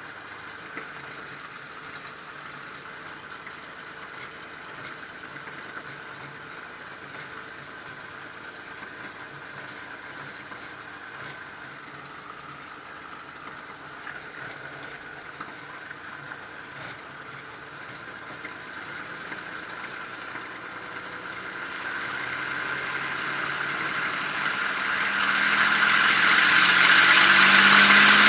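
P-51 Mustang's Packard Merlin V-12 engine running at low power, heard from inside the cockpit, then growing steadily louder and rising in pitch over the last several seconds as power comes up for the takeoff roll.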